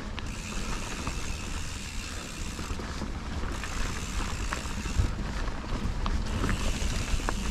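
Mountain bike rolling fast along a dirt trail: steady tyre and wind noise with the bike rattling, and a couple of sharp knocks, one about five seconds in and one near the end.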